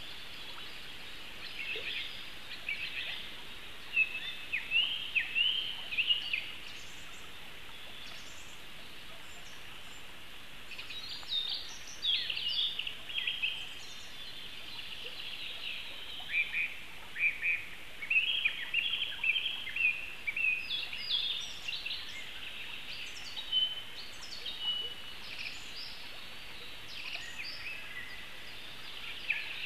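Forest songbirds singing in short, high chirping phrases, busiest in spells a few seconds in and again through the middle, over a steady background hiss.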